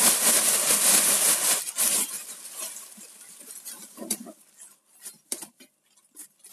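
Plastic carrier bag crinkling as young pine shoots are tipped out of it into a stainless steel pot: a dense rustle for about two seconds, then quieter scattered ticks and rustles as the last shoots are shaken out and settle.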